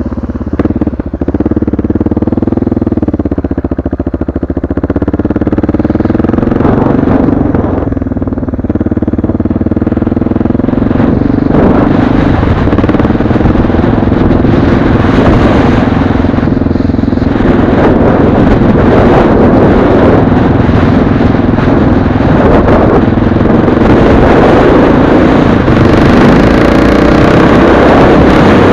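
Motorcycle engine running as the bike pulls away and rides on, its pitch climbing and dropping through the gear changes, then settling into a steady cruise. Wind rush over the microphone builds as speed rises.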